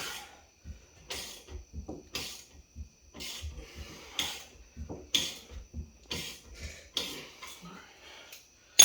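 Rhythmic strokes of a hand tool working at a car's front brake, about one a second, each a short scraping or ratcheting rasp.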